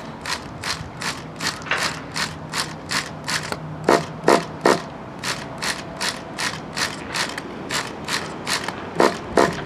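The starter of a nitro RC engine being worked over and over with the exhaust blocked, to prime fuel into the new engine: a quick run of ratcheting clicks, about three a second, a few of them louder.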